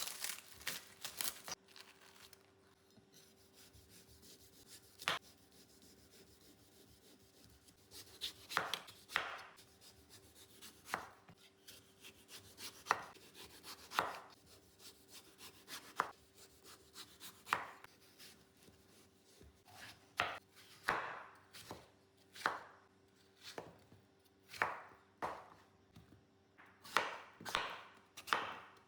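Knife cutting fruit: irregular chopping strokes, a few at the start and one alone about five seconds in, then steady cutting from about eight seconds on, with a faint steady hum beneath.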